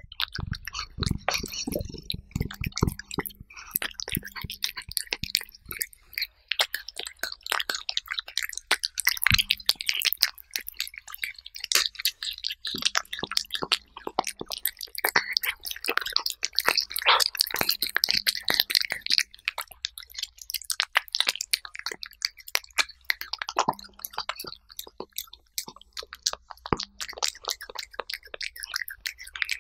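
A cat chewing and tearing at raw meat and chicken-breast purée, picked up by a clip-on microphone right beside the plate: a dense, irregular run of chewing clicks and smacks.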